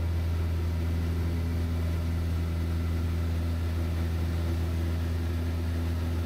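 Van's RV-7 light aircraft's piston engine and propeller running steadily in flight: a constant low drone with a faint hiss over it.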